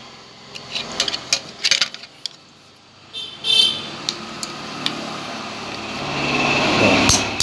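Light metal clicks and a short scrape as a key is turned in an old lock's exposed mechanism. A broad rumble swells up over the last couple of seconds.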